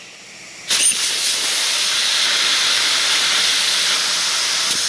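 Compressed air from a blow gun hissing steadily through the ports of a hydraulic control valve to test its passages, starting abruptly less than a second in.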